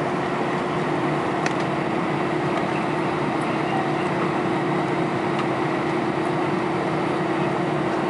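Cabin noise of an Airbus A320 taxiing slowly with its engines at idle: a steady hum with one steady mid-pitched tone running through it.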